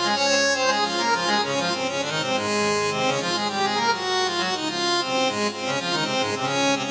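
Electronic arranger keyboard playing a melody on its harmonium tone, a reedy organ-like sound, over a moving bass line.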